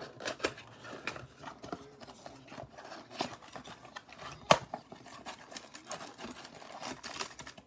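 Foil-wrapped trading-card packs and a cardboard blaster box being handled as the packs are taken out: irregular rustling and light clicks, with one sharp knock about four and a half seconds in.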